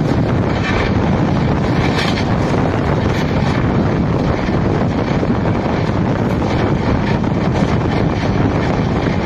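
Steady, loud running noise of an Indian express train's passenger coach at full speed, its wheels rumbling on the rails, with heavy wind buffeting the microphone from the open window.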